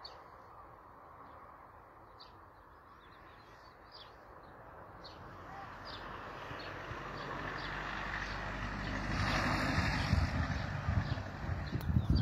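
Small birds chirping in short, repeated calls. A low rumble grows steadily louder from about halfway through, peaking near the end with a few dull thumps.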